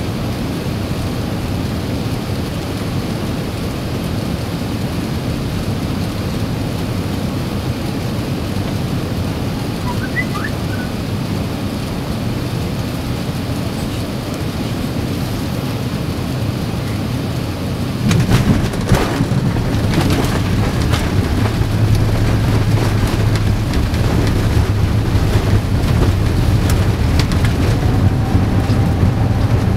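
Cabin noise of an Airbus A380 on final approach, a steady rush of air and engines. About eighteen seconds in, the main gear touches down with a few thumps, and the noise steps up into a louder low rumble as the airliner rolls out along the runway.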